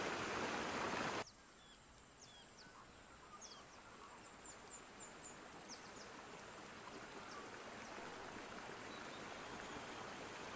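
Nature-sound ambience: an even rushing like a stream that cuts off suddenly about a second in. It gives way to a quieter high hiss with scattered short, high chirps.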